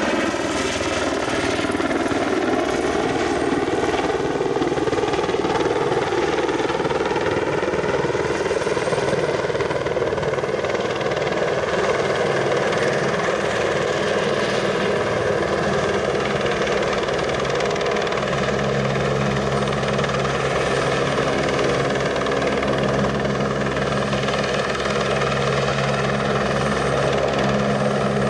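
Helicopter flying overhead with a floodlight mast slung beneath it on a long line, its rotor and turbine running steadily. The engine note rises in pitch over the first several seconds, and a steady low rotor hum comes in about two-thirds of the way through.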